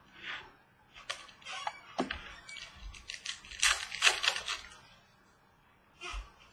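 Trading cards and plastic card holders handled on a tabletop: light rustling, sliding and clicks, busiest about three and a half to four and a half seconds in.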